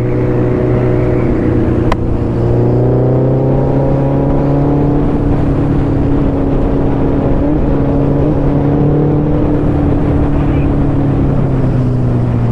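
Suzuki Hayabusa's inline-four engine running steadily at highway cruise, its note rising slightly and then easing back a little, with wind rushing over the microphone. A single sharp click about two seconds in.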